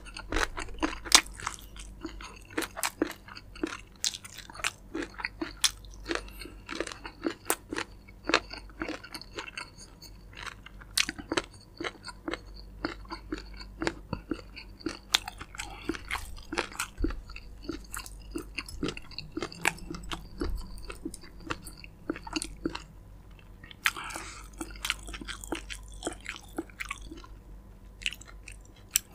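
Crispy fried chicken being bitten and chewed close to the microphone: an irregular run of crunches and crackles, several a second, busiest near the end.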